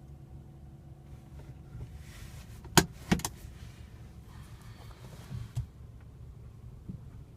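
Steady low hum of a BMW F30 320i in reverse, heard inside the cabin. Two sharp clicks come about three seconds in, and a couple of softer knocks follow about two seconds later. The extra whistle the owner hears in the cabin when reversing does not stand out clearly over the hum.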